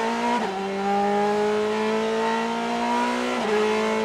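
Extreme Speed Motorsports Ferrari GT race car's V8 accelerating, heard onboard. The engine note climbs steadily, drops sharply at an upshift about half a second in, climbs again and drops at a second upshift near the end.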